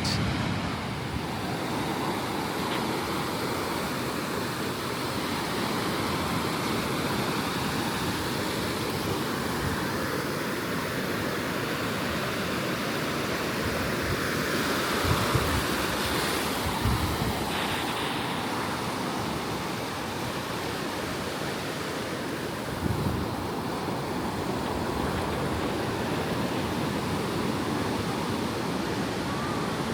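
Ocean surf washing on a beach: a steady, unbroken rush of noise, with a few brief louder bumps.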